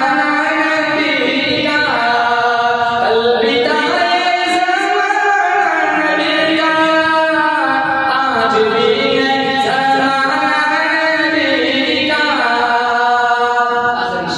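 A man singing an Urdu naat solo without instruments, in long held notes that glide from one pitch to the next.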